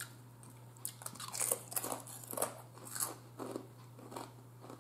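A Ruffles Original potato chip being bitten and chewed: a run of sharp, irregular crunches, a few each second.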